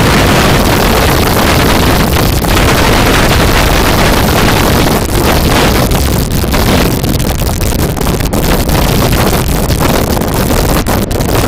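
Strong wind buffeting a phone's microphone on an open beach: a loud, continuous rumbling rush of noise that eases briefly now and then.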